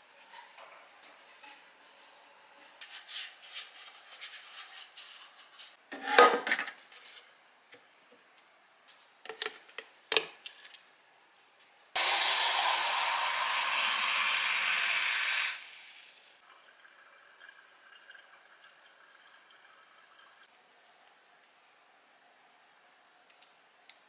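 Kitchen tap spraying into a plastic water filter pitcher, a steady rush of water for about three and a half seconds that cuts off sharply. A few clinks and knocks come before it.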